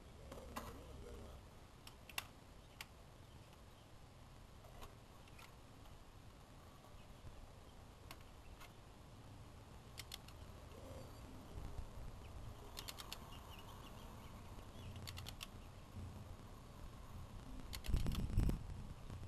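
Ratchet wrench clicking in short runs of quick clicks as a spark plug is turned through an extension, with scattered single clicks between. A louder dull knock comes near the end.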